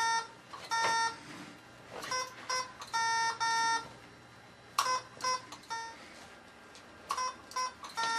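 Electronic Morse code feedback beeps from a head-switch Morse input system as text is typed: short and long beeps, dots and dashes, in irregular groups with short pauses between letters.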